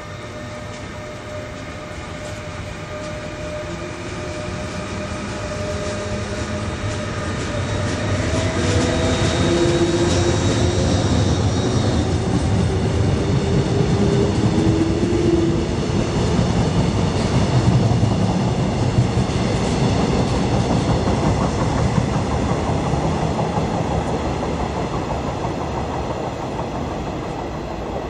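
Electric passenger train running through the station: a rumble of wheels on the rails that builds as it approaches, is loudest through the middle as it passes close, then fades away. A few steady tones slide down in pitch as it draws near.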